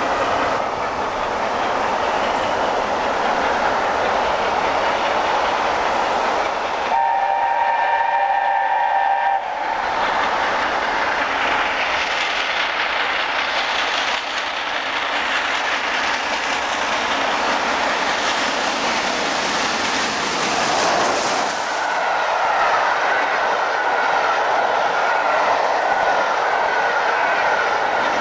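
LNER A4 Pacific steam locomotive running at speed, sounding its chime whistle once for about two and a half seconds, several notes at once. It then rushes past with its coaches clattering over the rail joints, and a trailing diesel locomotive goes by near the end.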